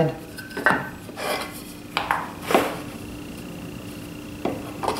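Wooden boards being picked up and set down on a metal saw table: several light knocks and scrapes, a few seconds apart.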